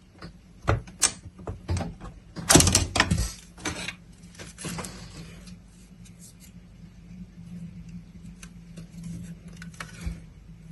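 Clicks, knocks and a short scraping slide as a graphics card is worked loose and pulled out of a PC case, with the loudest clatter about two and a half seconds in and a softer rustling scrape a little later.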